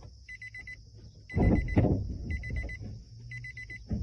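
A car's electronic warning chime: quick beeps in groups of about five, each group repeating about once a second, over a low steady hum. About a second and a half in there is a louder rustle and knock.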